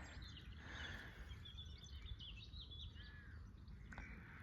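Faint birdsong, a series of short high chirps and twitters clustered around the middle, over a steady low rumble.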